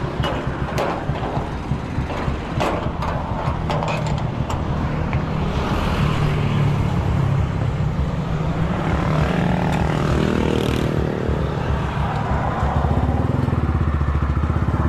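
Motorcycle engine of a sidecar tricycle running, with a few sharp metal clanks in the first few seconds as the gate is shut; about twelve seconds in the engine grows louder as the bike pulls away.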